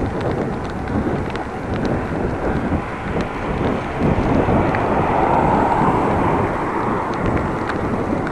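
Wind buffeting a bike-mounted action camera's microphone during a ride, with rolling road noise. A broader rushing swell rises about four seconds in, is loudest around five to six seconds, then eases.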